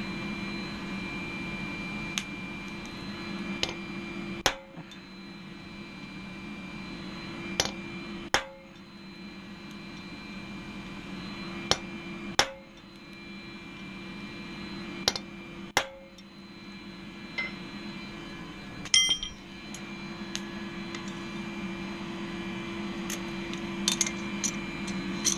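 Hand hammer striking a red-hot steel knife blade on an anvil, mostly in pairs of blows every few seconds, with a brief ring after the louder ones and a quicker flurry of blows near the end. Under it is the steady hum of a lit gas forge.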